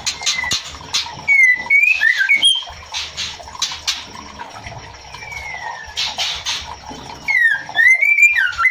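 Female white-rumped shama calling to a male: sharp clicking notes mixed with short whistled phrases that glide up and down, in a burst about a second in and again near the end, with a single falling whistle between.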